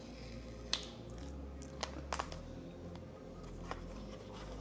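A few light clicks and taps of a white cardboard watch-band box being handled and opened, its tear strip pulled and its lid lifted; four or so separate ticks spread over the few seconds.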